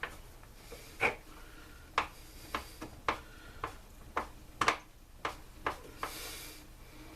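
Hand tools and blower parts being handled during a teardown: a string of irregular sharp clicks and knocks, about one a second, with a short hiss about six seconds in.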